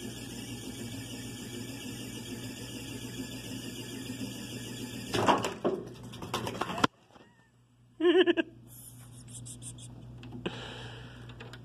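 Small homemade spinning battle bot running on a plywood arena floor, its motors making a steady whirring hum. About five seconds in it turns louder and rattly as the bot wanders off-centre, and the sound cuts off abruptly about two seconds later. A short squealing burst follows.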